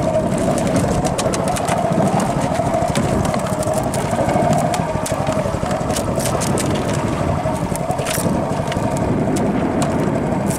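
Small fishing boat's engine running steadily, with a few sharp knocks from the catch being handled on board, the clearest about eight seconds in.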